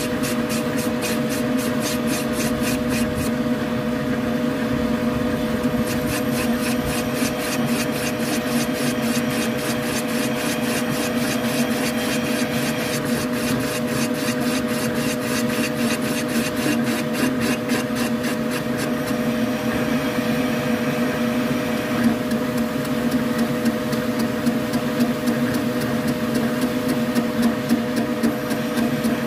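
Motor-driven boring tool turning steadily inside an aluminium motorcycle crankcase, its cutter enlarging the cylinder bore. It makes a steady hum, with a fast, light ticking from the cut that comes and goes.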